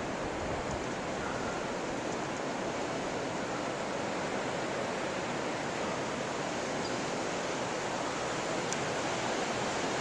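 Blizzard wind blowing steadily, an even rush of noise that holds without gusts or breaks.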